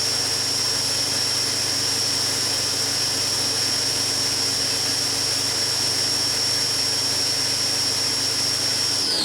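Haas HS-1 horizontal machining center spindle running at its top speed of 7,500 RPM: a steady high whine over a constant mechanical hum. Near the end the whine drops in pitch as the spindle starts to slow down.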